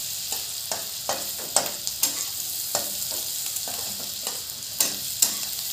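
Sliced onions sizzling in hot mustard oil in a wok. A metal spatula scrapes and taps against the pan at irregular intervals, about twice a second, as the onions are stirred.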